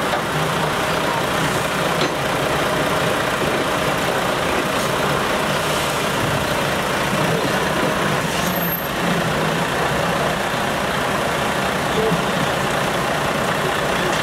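Heavy diesel truck engines running steadily at low revs as a tractor unit creeps slowly forward.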